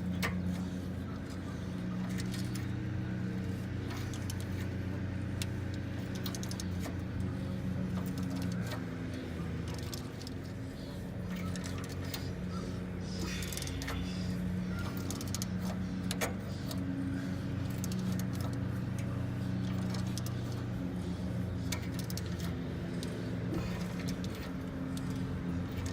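Metal hand tools clicking and clinking in scattered taps as bolts are worked with a 3/4-inch wrench, over a steady low hum.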